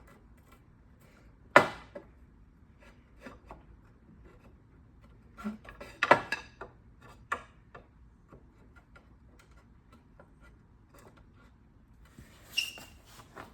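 Wooden dowels clacking and rubbing as they are fed down into the slot of a wooden playpen post: scattered knocks, the sharpest about a second and a half in, a cluster around six seconds, and another near the end.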